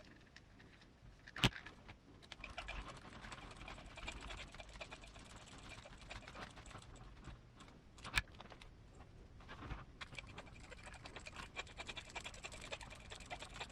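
Light, busy clicking and tapping of small plastic and metal RC car parts being handled, with two sharper clicks about a second and a half in and about eight seconds in.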